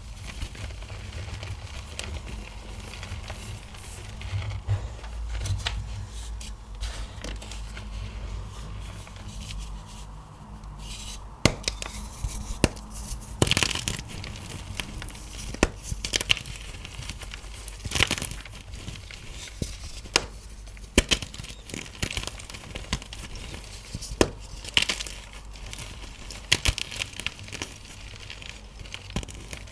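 Blocks of magnesium carbonate gym chalk being squeezed and crushed by hand. Soft crumbling at first, then from about halfway through a run of sharp, crunchy cracks and snaps.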